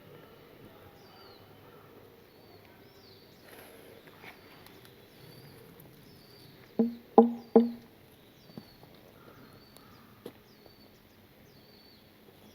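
A bird repeating a short, hooked high call about once a second over quiet forest ambience. About seven seconds in come three short, low pitched toots in quick succession, the loudest sounds, followed by a couple of faint knocks.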